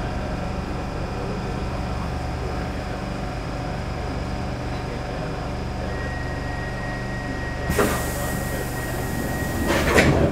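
A Stockholm Metro C6 train standing at a station, its equipment giving a steady low hum, with a thin high tone held for a few seconds from about halfway. A sudden loud hiss comes about three-quarters of the way through, then a louder clatter of knocks near the end.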